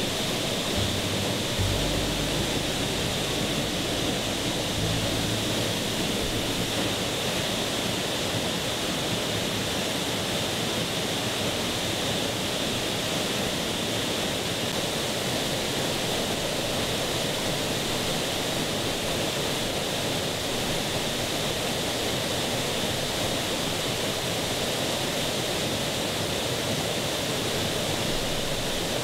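Steady rush of a waterfall, an even wash of falling water. Background music fades out in the first few seconds.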